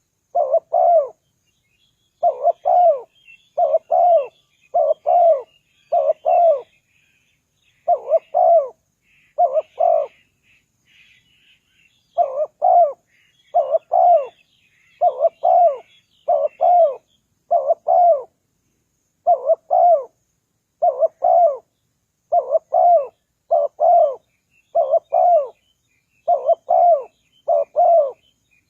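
Spotted dove cooing: a long series of short coo notes, about one a second in runs of two or three, with a pause of about two seconds near the middle. Faint high chirps of small birds sound behind it.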